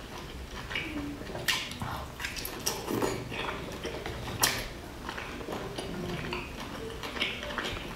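Close-miked eating: chewing soft boiled dumplings, with sharp clicks of chopsticks against a glass dipping bowl several times.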